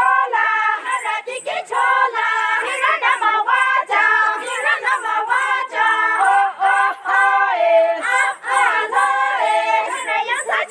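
A group of women's voices singing a Sangtam Naga folk song together in chorus, with no drum or other instrument heard.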